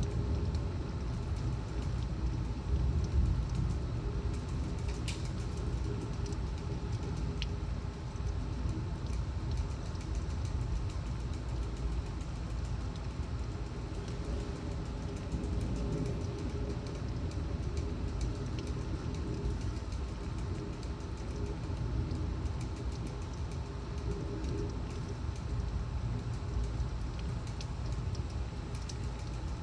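Steady low roar of storm wind and heavy rain, with a few faint ticks.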